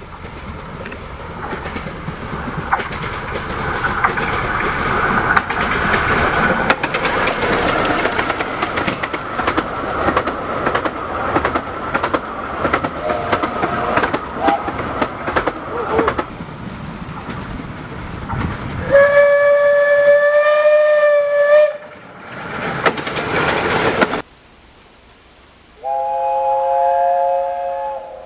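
Train passing on the rails, wheels clattering over the joints, followed by a long single-note whistle blast of about three seconds and a burst of hiss. Near the end comes a shorter blast of several notes sounding together as a chord.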